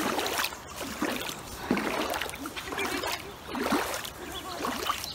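Shallow river water running and trickling over its bed, with irregular rustles that swell about once a second.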